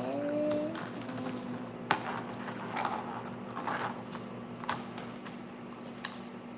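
Plastic sand toys and containers clicking and scraping during kinetic sand play, with two sharp clicks about two seconds and nearly five seconds in. A short rising vocal sound opens it, over a faint steady hum.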